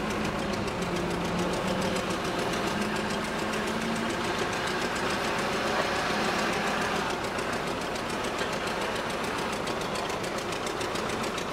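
An engine running steadily, an even mechanical drone with a fast regular beat.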